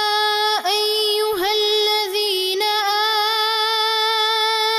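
A male Quran reciter chanting in tajweed style, holding long drawn-out notes in a high voice with brief ornamental dips in pitch.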